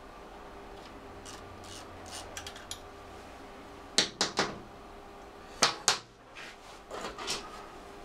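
Hand tools and small metal parts being handled while a motorcycle rectifier's mounting fastener is undone: faint light clicks at first, then three sharp metallic clinks about four seconds in, two more near six seconds, and a few softer clinks near the end.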